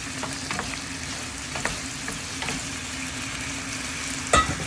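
Chicken, potatoes and carrots sizzling and simmering in sauce in a nonstick frying pan, stirred with a wooden spatula that scrapes and taps the pan with small clicks. A steady low hum runs underneath, and a sharp knock comes a little after four seconds in.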